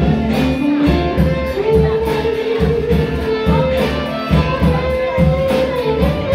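Live band playing: electric guitars, bass guitar and a drum kit keeping a steady beat, with a long held note that climbs slowly in pitch over the rhythm.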